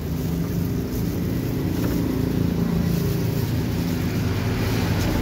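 A steady low hum of a running motor, constant in pitch throughout.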